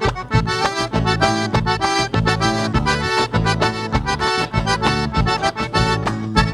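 Live band playing an instrumental passage of a bailão dance song. An accordion leads the melody over a steady bass beat.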